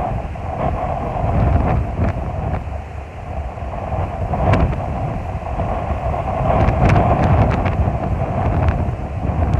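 Strong wind buffeting the microphone in a steady, gusting rumble, with a few sharp clicks around the middle.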